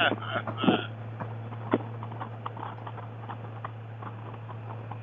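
Steady low drone of a motorcycle being ridden, heard through a helmet intercom recording, with a few short clicks and brief noises in the first second and scattered faint ticks after.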